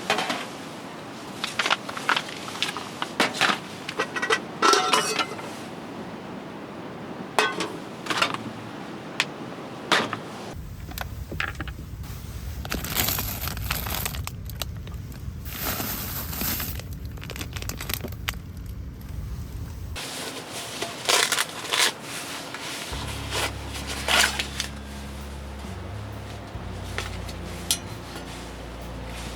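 Cookware and dishes handled during camp cooking: scattered clinks, taps and knocks of metal and glass, coming in several short bursts, with a low rumble under some stretches.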